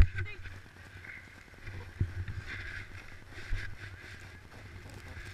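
Low rumble of wind and handling noise on a body-worn camera, with soft thumps about two and three and a half seconds in as the wearer moves about on the snow.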